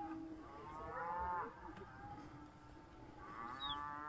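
A cow mooing, two drawn-out calls of about a second each, the second starting about three seconds in.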